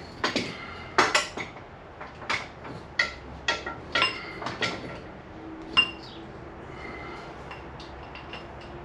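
Small metal parts and tools clinking and knocking together: about a dozen sharp, ringing clinks over the first six seconds, then fewer. A faint steady hum runs under the second half.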